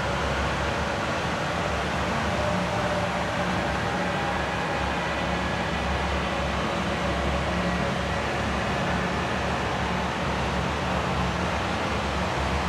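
Steady rushing noise with a low hum underneath, unchanging in level.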